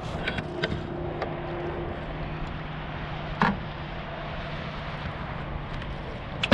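Wind and water noise on open water from a small aluminium jon boat, with a faint steady hum, a few light clicks in the first second, and one short louder sound about three and a half seconds in.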